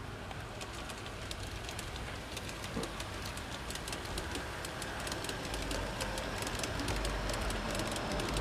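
Freight train rolling past, its wheels clicking quickly and unevenly over rail joints, with a low rumble that grows louder over the last few seconds.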